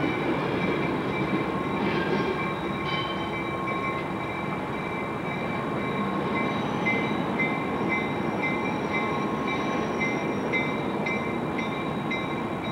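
EMD F7 diesel locomotive moving slowly away, its engine rumbling steadily while the wheels give off thin, high squealing tones that come and go, more often in the second half.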